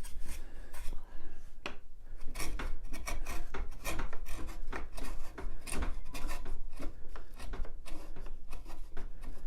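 A sharp bench chisel paring pallet wood across the grain by hand, a run of short scraping, slicing strokes several times a second, with an occasional knock.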